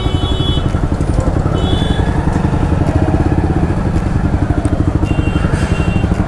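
Yamaha R15 V3's single-cylinder engine running at idle and low revs through a super loud exhaust, a fast, even rumble of firing pulses while barely moving. Short high horn beeps sound at the start, about two seconds in, and again near the end.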